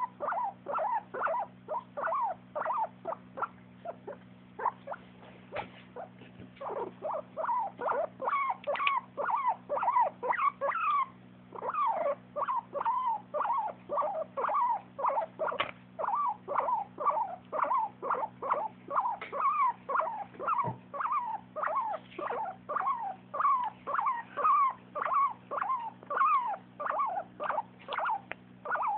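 A pet making a long run of short, squeaky calls, about two a second, with a pause a few seconds in. These are the animal's happy sounds. A faint steady hum runs underneath.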